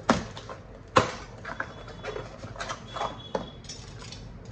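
A cardboard parcel being opened with a box cutter: two sharp knocks, at the start and about a second in, then lighter taps, scraping and rustling of cardboard as the flaps are pulled open and the packaged item is lifted out.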